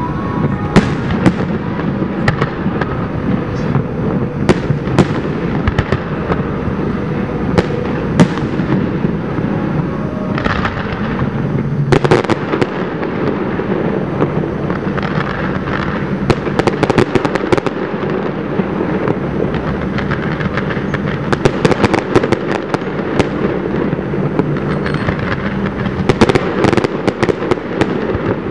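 Aerial fireworks display: a continuous barrage of shell bursts and crackling reports over a steady low rumble, with dense clusters of sharp cracks about halfway through and again through the last third.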